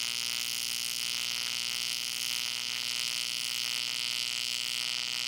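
AC TIG welding arc on aluminum, a steady buzzing hum with a hiss over it, as filler rod is fed into the puddle. It stops abruptly at the end.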